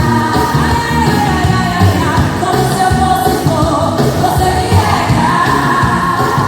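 Upbeat pop song with a singer's voice and a steady beat, played loudly as background music.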